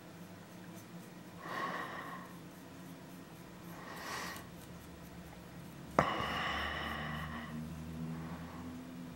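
A person breathing close to the microphone, with two soft exhales. About six seconds in comes a sharp click, followed by a louder breath lasting a second or so.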